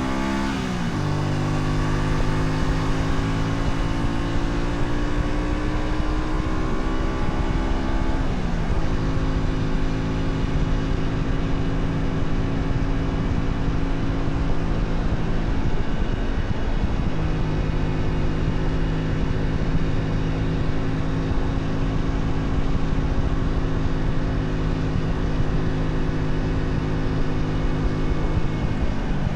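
Honda Shadow 125's small V-twin engine on the move: its note climbs, drops with an upshift about a second in, climbs steadily again, and drops with another upshift about eight and a half seconds in. It then holds a steady cruising note, dropping once more right at the end.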